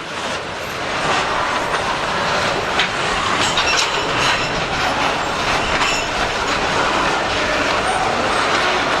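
Freight train cars loaded with wood rolling past close by: a steady rumble of steel wheels on the rails, with scattered sharp clacks as the wheels cross rail joints.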